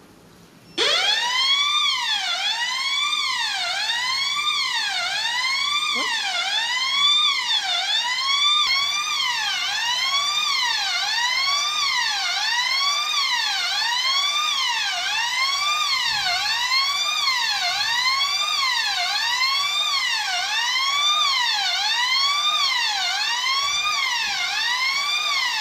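Electronic fire alarm sounder going off with a loud sweeping tone that glides up and down about once a second. It starts abruptly about a second in.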